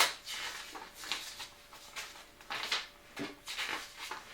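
Paper pages of an instruction booklet rustling and swishing as they are flipped through in quick succession, several separate page turns.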